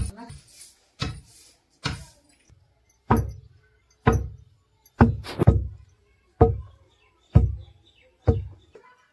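Heavy rhythmic thuds, about one a second with a quick cluster around five seconds in, each strike deep with a short ringing tail: steady pounding or chopping.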